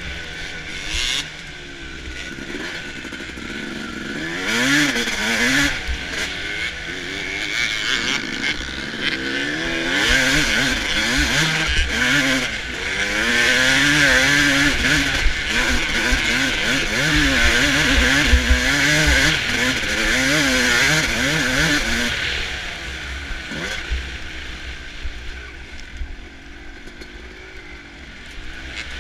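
2005 Suzuki RM250 two-stroke motocross bike's engine revving up and down again and again as it is ridden hard through the gears, over a steady hiss. The engine eases off and runs quieter for the last several seconds.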